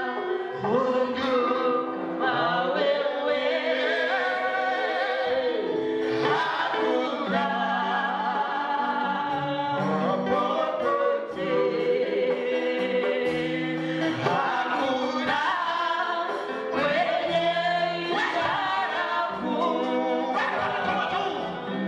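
Several voices singing a slow gospel worship song together, with long held notes and new phrases every few seconds.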